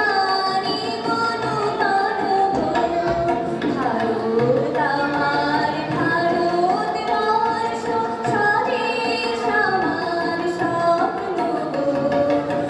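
A woman singing live, accompanied by a harmonium and a tabla pair played by hand.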